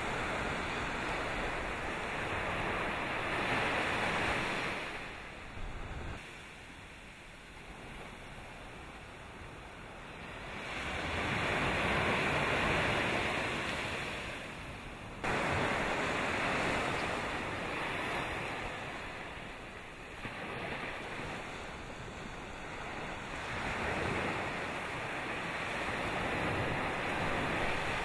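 Surf breaking and washing up a sandy beach, the waves swelling and fading every several seconds.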